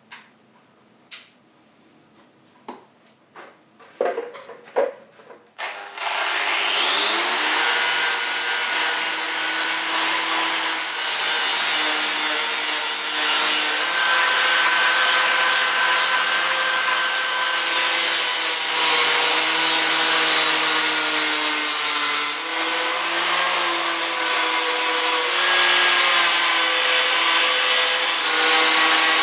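A few light clicks of handling, then an angle grinder fitted with a plastic paint-removal fleece disc spins up about six seconds in. It runs on steadily, stripping paint from a motorcycle fork leg, its pitch shifting a little as it is pressed against the leg.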